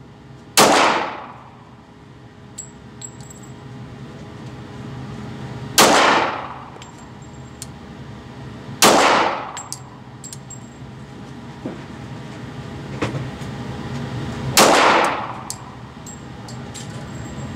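Four slow, deliberate pistol shots from a Glock, several seconds apart, each echoing and ringing away in an indoor range, with a few faint small clicks between them.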